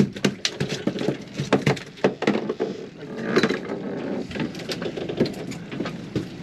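A rapid, irregular series of knocks, taps and clatter that cuts off suddenly near the end.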